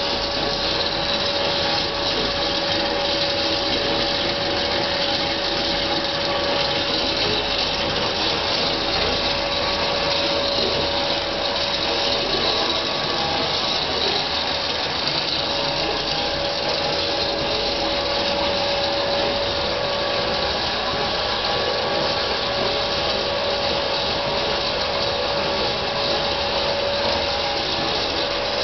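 Homemade electric-motor-driven jaw crusher running steadily, its belts and pulleys turning, giving a constant whine over a busy mechanical noise.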